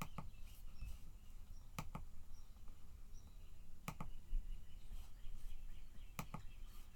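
A few sharp single clicks, scattered seconds apart with the last two in quick succession, over a faint low room hum.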